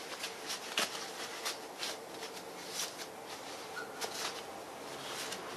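Shop towel being handled and rubbed, soft irregular rustling and scraping with scattered light clicks, over a faint steady hum.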